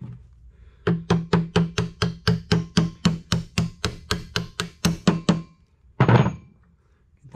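A hammer tapping quickly on a steel socket used as a drift, about five blows a second, each ringing with a metallic tone. The taps drive the fan hub down the generator shaft over its Woodruff key until it bottoms out. One louder, longer knock follows about six seconds in.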